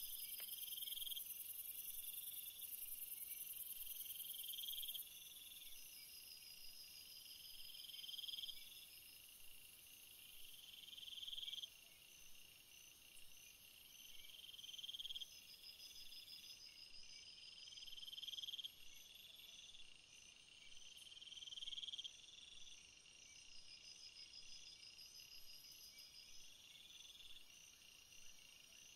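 Night insect chorus of crickets: a steady high-pitched trill, with a lower call that swells and cuts off every couple of seconds.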